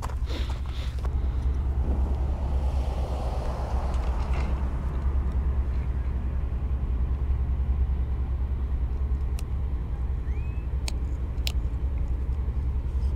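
A steady low rumble, with a few faint clicks and taps as hands rig crab bait on a hook over a metal tailgate.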